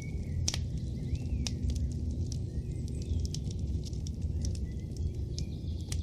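Campfire crackling: scattered sharp pops and snaps over a steady low rumble, with a few faint bird chirps.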